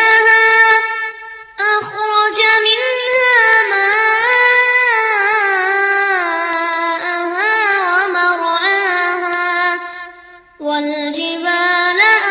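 Background music with a high solo singing voice holding long, bending notes; it breaks off briefly twice.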